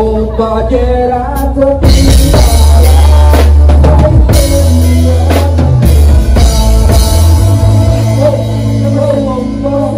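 Live band playing: drum kit, electric bass and keyboard with a man singing into a microphone. The full band comes in loudly about two seconds in, with a heavy bass.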